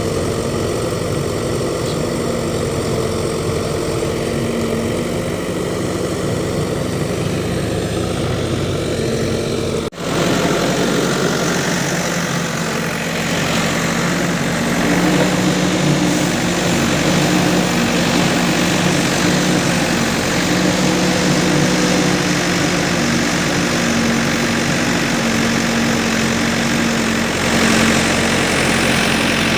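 Diesel engine of heavy farm or construction machinery running at a steady speed. An abrupt break about ten seconds in gives way to a louder, noisier engine sound that swells slightly twice later on.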